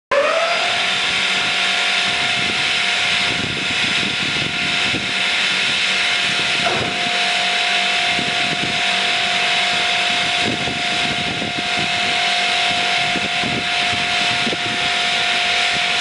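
Swing blade sawmill's saw spinning up, its pitch rising over the first half second, then running at a steady pitch with a strong hiss.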